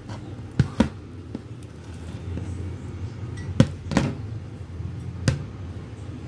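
A plastic mixing bowl of risen dough being handled and moved on a table, giving about five sharp knocks and taps: two close together about half a second in, two more around three and a half to four seconds, and one near five seconds. A low steady hum runs beneath.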